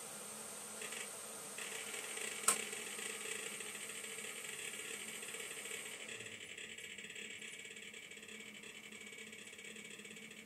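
An HDD activity clicker playing through a small PC speaker gives a rapid, irregular stream of ratchet-like clicks. The clicks follow disk access while the PC loads Windows 95 from SD card storage, standing in for the seek noise of a hard drive. There is one sharper, louder click about two and a half seconds in.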